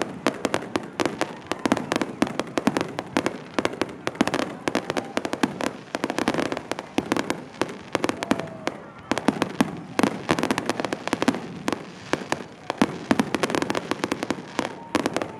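Fireworks going off in a dense, near-continuous run of rapid bangs and cracks.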